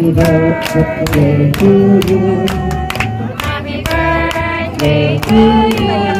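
A song with singing plays loudly, with held notes and a regular beat. Hands clap along.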